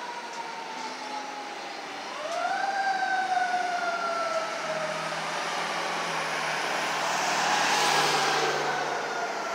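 Fire engine siren winding up quickly and then dropping slowly in pitch. It rises again about two seconds in, then winds down over several seconds. Traffic noise runs underneath and swells near the end.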